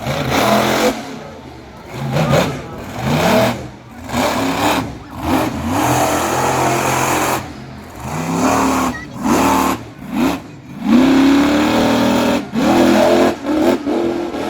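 Monster truck engine revving hard in repeated bursts, its pitch climbing and falling with each stab of the throttle.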